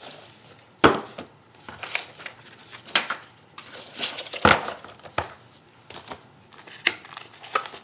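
Paper sheets and plastic-sleeved craft packs being handled on a table: rustling and crinkling, with several sharp taps and slaps as packs are moved and set down, the loudest about a second in.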